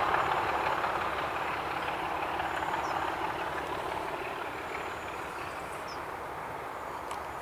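A diesel-hauled train going away along the line, its engine and running noise fading steadily.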